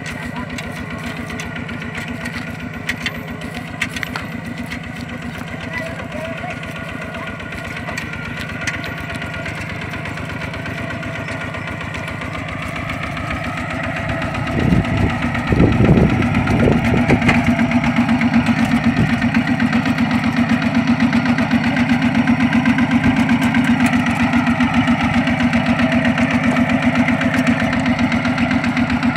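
Single-cylinder diesel engine of a two-wheel walking tractor running with a steady, fast thumping beat. About halfway through it is revved up and then keeps running louder and faster, as it pulls its loaded cart.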